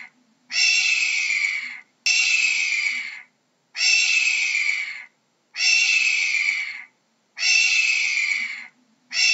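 A hawk giving a series of harsh, rasping screams, about six in all, each lasting over a second with a slight downward sag. The screams repeat at an even pace, one about every two seconds, with brief silences between them.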